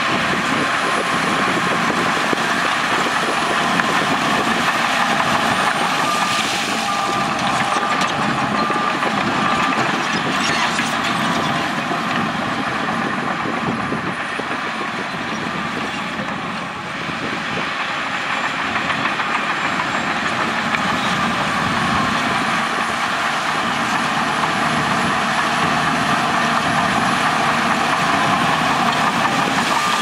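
Shantui crawler bulldozer's diesel engine running steadily under load as it pushes rock and soil, easing off briefly a little past halfway.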